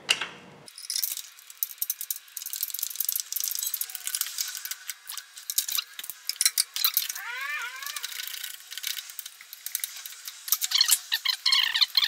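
Socket ratchet clicking rapidly as a starter mounting bolt is run in and tightened. The clicking sounds thin and tinny, with a few brief squeaky chirps about seven seconds in.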